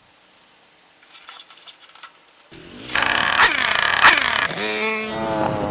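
Dirt bike engine starting suddenly about two and a half seconds in after a few quiet clicks, then revving up and down before settling into a steadier run.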